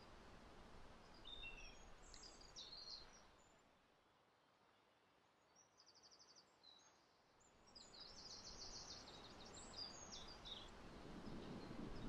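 Faint songbird song: a few short, high chirping phrases, with a fast trill of repeated notes about halfway through and a longer trilling phrase a couple of seconds later, over a quiet outdoor background hiss.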